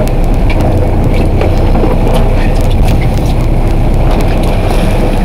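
Fishing boat's engine running with a steady low hum, under a wash of wind and water noise.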